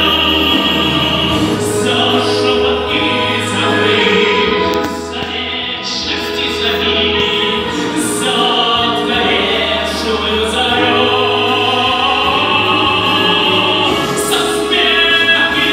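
A man singing a Russian song in an operatic style through a microphone and the hall's speakers, over a recorded accompaniment.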